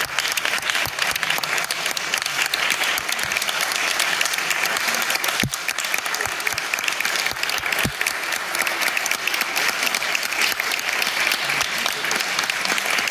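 Audience applauding steadily after a performance, a dense, even patter of clapping hands. Two dull thumps stand out about halfway through and again a couple of seconds later.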